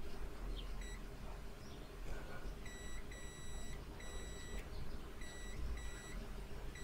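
Digital multimeter in continuity mode beeping as the probe touches capacitors on a phone circuit board: one brief beep, then a run of several short beeps. Each beep signals continuity to ground, the mark of a short on the phone's VPH power line.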